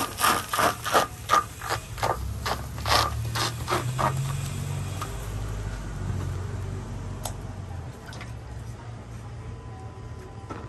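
Regag dough being smeared by hand across a hot round griddle, rubbing and scraping in rhythmic strokes about three a second. The strokes stop about four seconds in, leaving a low steady rumble.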